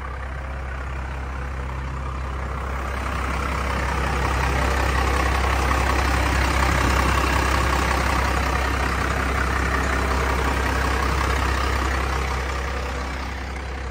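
5.9 Cummins inline-six turbodiesel of a 1997 Ford F800 idling steadily, heard up close in the open engine bay. It grows louder a few seconds in and eases slightly near the end.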